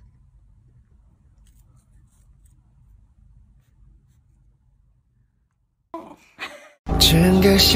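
Faint light ticks and rustles of a kitten pawing and nibbling a plastic bottle cap on a tiled floor, over low room hum. After a short silence and two brief sounds, loud pop music starts near the end.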